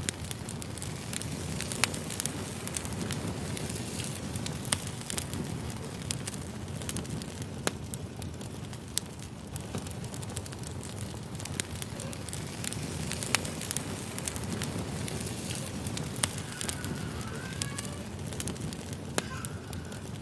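Firewood burning: a steady low rumble of flames with irregular sharp crackles and pops.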